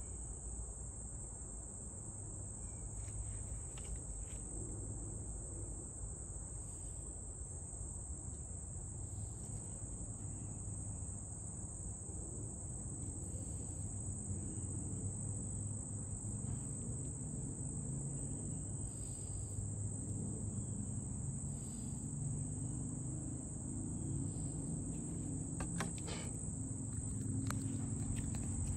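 A steady, high-pitched chorus of insects drones without a break, over a low rumble. A few sharp clicks come near the end.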